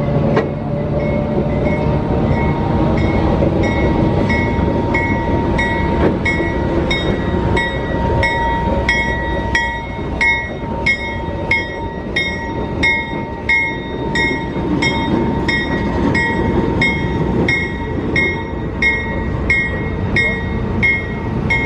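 Diesel switcher locomotive moving slowly with a train in tow, a steady low rumble of engine and wheels on the rails. A bell rings over and over, about one and a half strikes a second, getting louder after the first few seconds.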